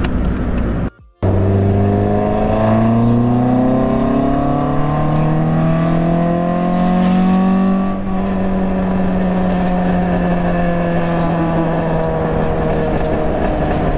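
Peugeot 206's four-cylinder engine, heard from inside the cabin, pulling up through the revs for several seconds after a brief cut-out about a second in. About eight seconds in it eases off and settles into a steady drone at cruising speed.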